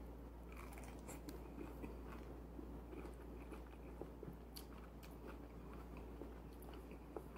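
A person chewing a mouthful of cheese ball, with faint mouth sounds and small scattered crunches.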